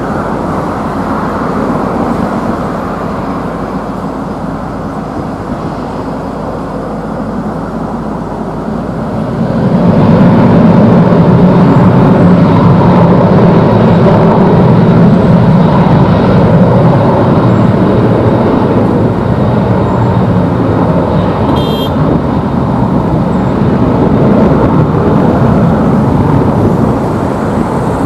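Boeing 737-800 jet's CFM56-7B turbofan engines at takeoff. A steady, lower engine noise swells sharply about ten seconds in as takeoff thrust is set, then holds loud and steady through the takeoff roll.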